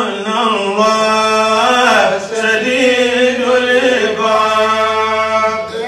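A man chanting a solo recitation, holding long, drawn-out melodic notes that bend and waver, with a brief break about two seconds in.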